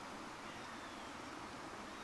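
Steady rain falling on the tarp shelter overhead, an even hiss with no separate drops standing out.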